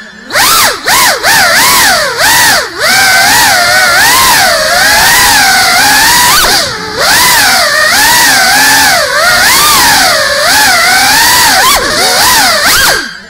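FPV quadcopter's electric motors and propellers whining, the pitch rising and falling constantly with the throttle, with brief dips where the throttle is cut, about a second in, near 3 s and near 7 s.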